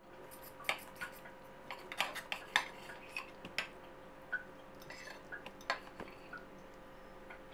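Metal fork and knife clinking and scraping against a plate while cutting through baked stuffed eggplant: an irregular scatter of sharp clinks over a faint steady hum.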